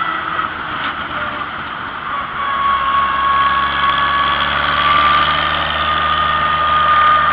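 Vintage farm tractor's engine running as the tractor drives along the road, heard from on board. A steady high whine rides over the engine note, which eases slightly about two seconds in and then picks up again.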